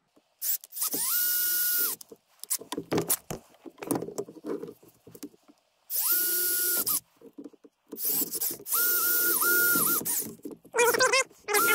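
Cordless drill boring a bolt hole through 3/4-inch PVC pipe legs in three runs: each time the motor whine comes up to speed within a fraction of a second and holds steady, with short pauses between runs. Near the end there is a burst of squeaky chirps.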